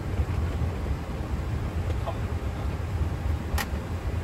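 Steady low rumble in the cockpit of an Airbus A330 rolling along the runway after landing, with one sharp click about three and a half seconds in.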